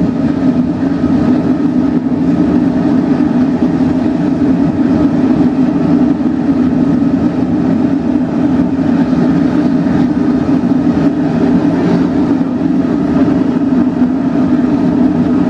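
Emirates Boeing 777-300ER's GE90 turbofan engines running steadily on the apron, a constant deep drone with hiss above it.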